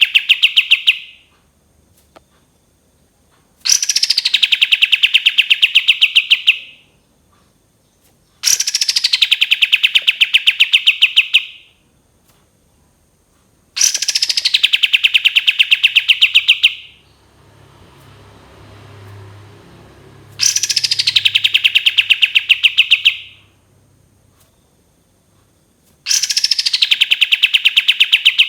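Kapas tembak bulbul singing its long 'tembakan' phrase: a very rapid trill that drops quickly from high pitch, then holds level for about three seconds. It repeats identically about every five seconds, as a looped tutoring recording.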